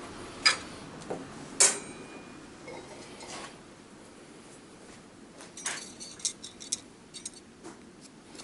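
Metal pieces clinking and being tapped: two sharp clinks in the first two seconds, the second ringing on briefly, then a run of lighter clinks and ticks in the last few seconds.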